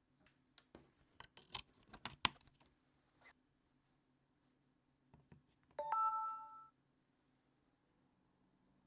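Clicks and rattles of a phone and charger being handled, then, about six seconds in, the Samsung One UI 7 charging sound: a short chime of a few bright notes lasting under a second, signalling that charging has started.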